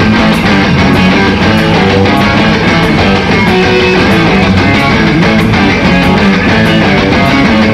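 Live rock band playing an instrumental passage: electric guitar and bass over a steady drum beat, with no singing.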